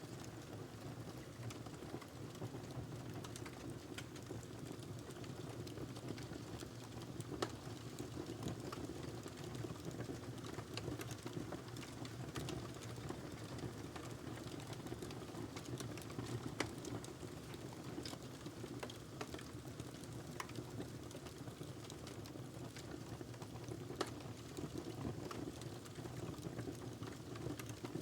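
Logs burning in a fireplace: a steady low rush of flames with scattered sharp crackles and pops, a few louder snaps standing out.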